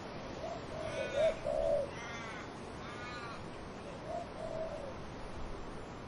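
A dove cooing low in two phrases, one early and one near the end, while another bird gives three short arching calls about a second apart, over a steady rush of wind in trees.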